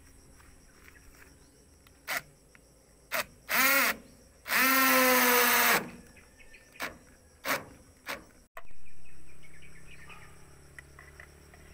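Cordless drill-driver running in short bursts as it drives screws into sheet-metal roof fascia: a brief whir about three and a half seconds in, then a longer, steady run of over a second, with a few sharp clicks around them.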